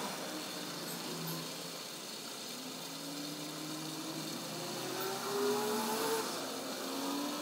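Fast-forwarded sound of water gushing from a pipe into a plastic barrel: a steady hiss, with faint whining tones that glide slowly upward.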